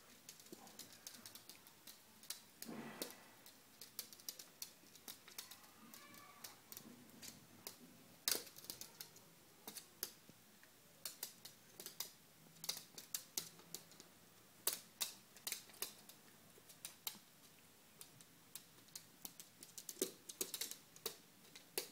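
Dogs' claws clicking and scrabbling on a wooden floor as two dogs play-wrestle: irregular sharp clicks and taps, in clusters, some much louder than others.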